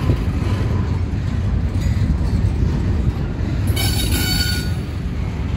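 Double-stack intermodal train's well cars rolling past with a steady low rumble of wheels on rail. A high-pitched wheel squeal rings out for about a second, a little past halfway.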